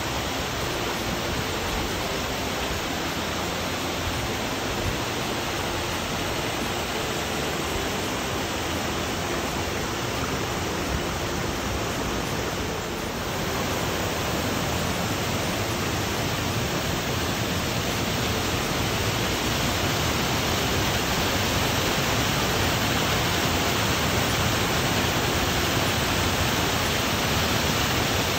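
A waterfall and its whitewater cascade: a steady, loud rush of water falling and churning over rock, a little louder after a brief dip about halfway through.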